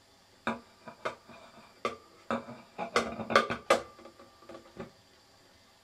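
Metal parts of a model low-temperature-difference Stirling engine clicking and knocking as it is handled by hand: about nine irregular sharp clicks with a short metallic ring, the loudest in a quick cluster a little past the middle.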